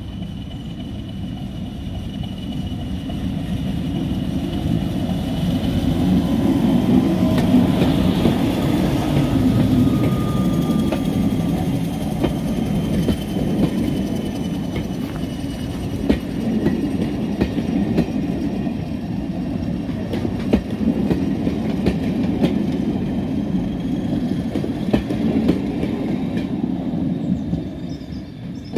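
Class 31 diesel locomotive with its English Electric V12 engine, growing louder as it approaches and passes at speed, the loudest moment about a quarter of the way in. Then a brown van and coaches rumble past, their wheels clicking over the rail joints, and the sound fades away near the end.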